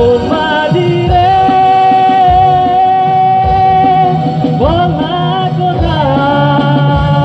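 Live band playing a song with a male lead singer. He holds one long note, then slides through two shorter phrases over electric guitars and keyboard, with a low beat about once a second.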